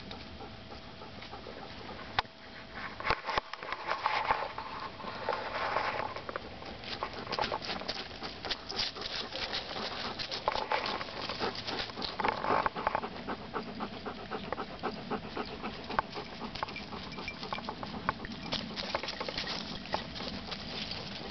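Dogs playing in dry fall leaves: leaves crackling and rustling in a busy patter under their paws, with a dog panting.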